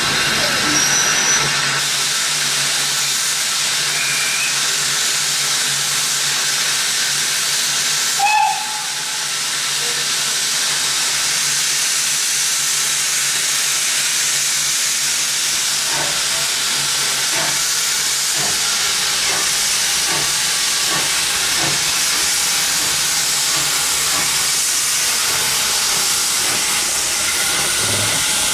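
SE&CR H class 0-4-4 tank steam locomotive hissing loudly and steadily as steam escapes from it while it moves slowly along the platform. There is a brief louder chirp about eight seconds in, and light clicks of wheels on the rails in the second half.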